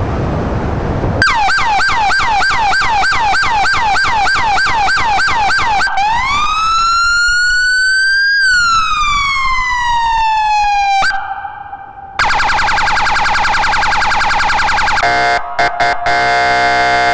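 Police car's electronic siren stepping through its tones. About a second in it starts a fast repeating whoop, several sweeps a second. At about six seconds it changes to one slow wail that rises and falls. After a short break comes the steady horn tone, which stutters on and off near the end.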